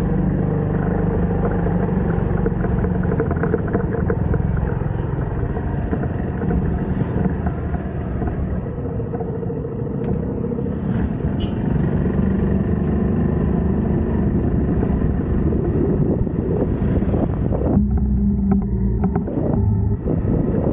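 TVS XL100 moped's engine running steadily. Near the end the high hiss drops out and the sound changes.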